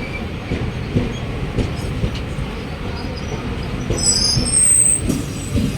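Mumbai suburban electric local train running on the rails, a steady low rumble with wheels knocking over rail joints. About four seconds in, the wheels give a brief high-pitched squeal.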